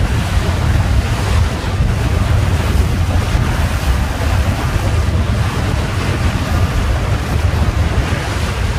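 Wind buffeting the microphone in a heavy, steady low rumble, over the hiss of choppy waves and water rushing past the hull of a small sailboat under sail.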